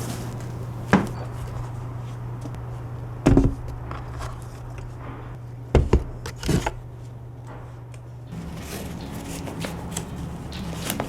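Handwork sounds in a boot-repair workshop: a few sharp knocks and scrapes over a steady low machine hum, which stops about eight seconds in.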